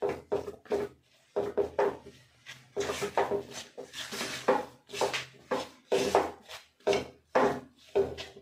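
Silicone spatula scraping and pushing a thick besan-and-ghee mixture around a nonstick kadai in repeated strokes, about two a second. The besan is being roasted in ghee on a low flame and has begun to release its ghee.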